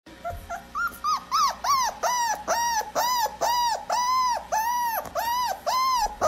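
Small black-and-white puppy giving a rapid run of high yelping cries, each rising and falling in pitch, about three a second, the cries growing slightly longer as it goes on.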